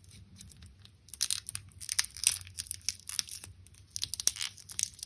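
Protective plastic stickers being slowly peeled off the back of a wristwatch: a quiet crackling, tearing sound in two spells.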